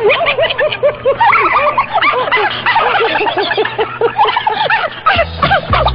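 Several people laughing together in overlapping bursts after a joke's punchline. Music comes in near the end.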